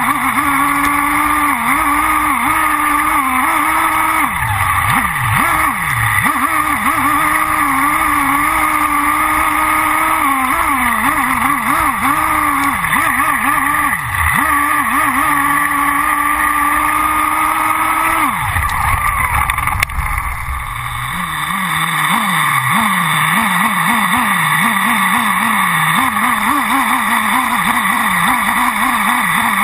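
OS V-Spec 3.5 cc (.21) nitro engine of a Thunder Tiger EB4S3 1/8-scale buggy, heard up close from on board, running at high revs with short dips as the throttle is lifted. About 18 seconds in, the revs fall away sharply. After that the engine runs at lower revs that rise and fall quickly, over and over.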